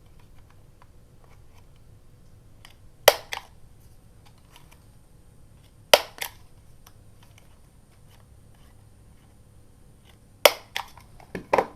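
Paper being cut: four sharp snips spaced a few seconds apart, each a loud click followed by a smaller one.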